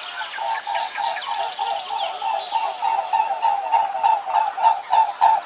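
Geese honking: a rapid run of short honks, about four a second, getting louder in the second half.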